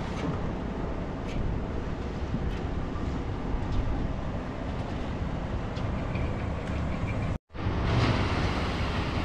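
Construction machinery running steadily during a concrete pour, with scattered light clicks and clanks over it. The sound cuts out for a split second about seven and a half seconds in, then carries on.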